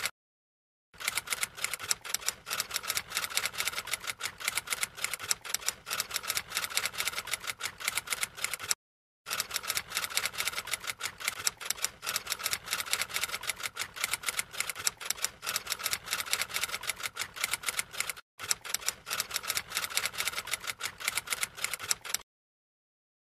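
Fast, dense clicking, like typewriter keys, that goes on for long stretches. It is cut off by short gaps of dead silence near the start, about 9 s in, and near the end.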